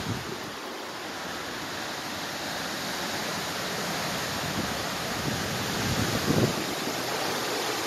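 Hurricane rain and wind, a steady dense rush. A few low gusts buffet the microphone about six seconds in.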